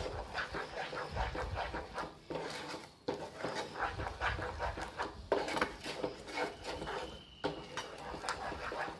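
A spatula stirring and scraping thick, sticky moong dal halwa paste around a frying pan in quick repeated strokes, with short pauses about three, five and seven and a half seconds in. The halwa is being stirred without a break as it cooks down and thickens.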